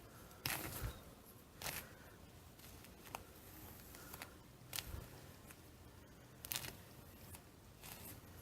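Faint rustling and a scattering of light clicks from hands working the hair and lace of a lace wig.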